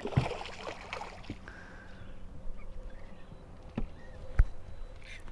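Two sharp knocks about half a second apart, a little under four seconds in, over faint steady background noise with a low hum.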